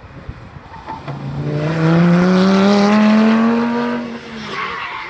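Lamborghini Gallardo's V10 engine accelerating past, its pitch rising steadily for about three seconds. It is loudest just before it cuts back and fades away about four seconds in.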